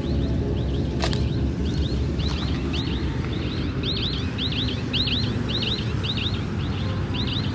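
A bird chirping over and over, short high chirps about two or three a second, over a steady low outdoor rumble, with a sharp click about a second in.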